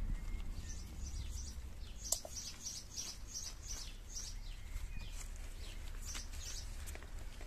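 Small birds chirping: a quick run of short, high chirps about two seconds in, and a few more near the end, over a low steady rumble. A single sharp click comes just as the chirping starts.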